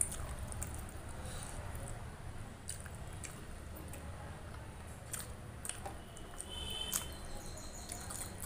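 Wet rice mixed with rasam and curry squished by hand on a steel plate, with wet chewing and smacking. Short sharp clicks come now and then, with a low steady hum under it all.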